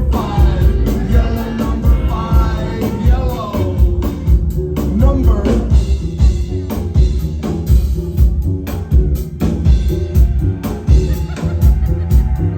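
Live rock band playing an instrumental stretch of a song: a steady, driving drum beat over heavy bass, with a wavering melodic line in the first few seconds.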